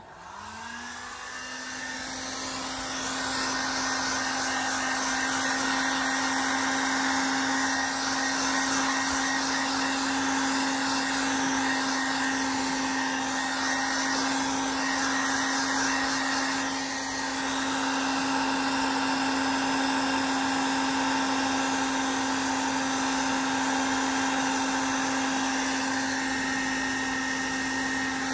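Hair dryer on its lowest setting, blowing warm air over wet acrylic pour paint. It starts up at the beginning, rising a little in pitch and in level over the first few seconds, then runs as a steady hum with a constant motor tone over a rush of air.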